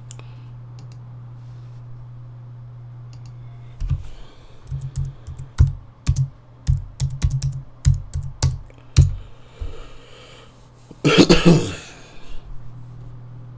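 Typing on a computer keyboard: a quick run of keystroke clicks, then a louder noisy burst lasting about a second near the end. A steady low hum runs underneath.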